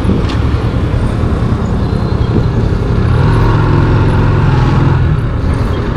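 Rusi Classic 250 motorcycle engine running steadily while riding, heard from the bike itself. The engine note grows a little louder around the middle.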